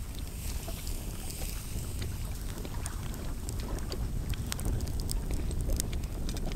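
Wind rumbling on the microphone, with scattered sharp crackles and pops from a campfire cooking a steak on a wire grill; the pops come more often from about three seconds in.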